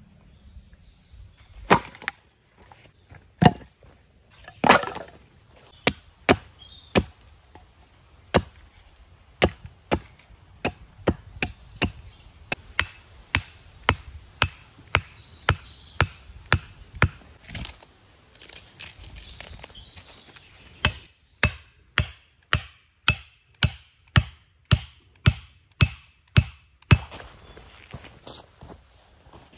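An axe chopping wood: a long run of sharp, evenly paced blows, about one and a half to two a second, with a short break about two-thirds of the way through.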